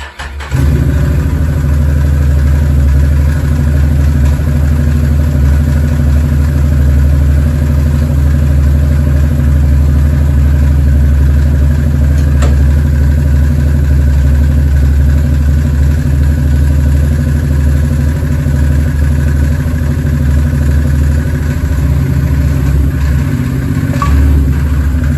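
Can-Am Maverick 1000R's Rotax V-twin engine idling steadily and loudly, after its rebuilt primary and secondary clutches and drive belt have just been fitted.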